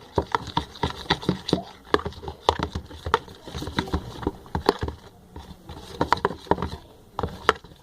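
Spoon stirring a slime mix of glue, shaving foam and colorant in a bowl: irregular clicks and taps of the spoon against the container.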